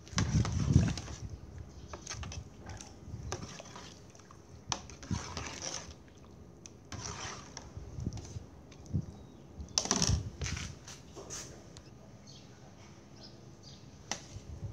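Kitchen handling sounds: a ladle knocking in an aluminium pot of gruel and a spoon clinking and scraping on a steel tray as cooked fish is picked off the bone, with light rustling between. A couple of louder knocks come at the start and about ten seconds in.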